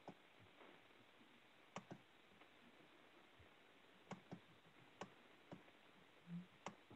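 Near silence: faint room tone over a remote meeting line, with a handful of faint, scattered clicks.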